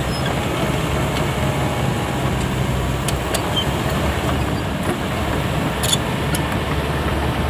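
Caterpillar D6R XL bulldozer's diesel engine running steadily, with a few faint clicks.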